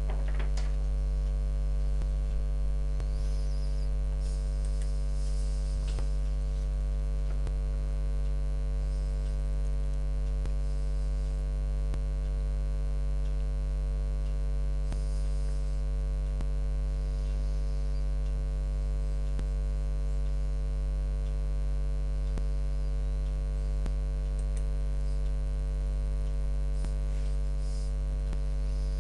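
Steady low electrical mains hum with a stack of even overtones, unchanging throughout, with a few faint ticks.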